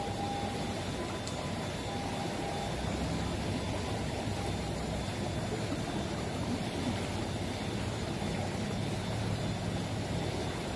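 Swollen, muddy river rushing past the bank in a steady, even noise with a low rumble.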